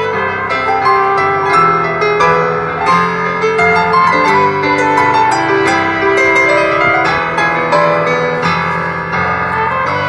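Acoustic grand piano played, with low chords held about a second each under a moving melody line.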